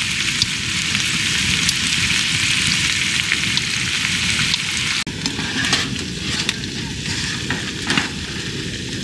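Food sizzling as it cooks on a titanium wood stove, a dense steady hiss. About five seconds in it drops a little and turns more broken, with scattered pops.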